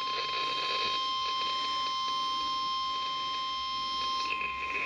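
NOAA Weather Radio's 1050 Hz warning alarm tone: one steady, unbroken single-pitched tone from a weather radio over a light hiss. It is the attention signal that comes right before a new National Weather Service warning is read.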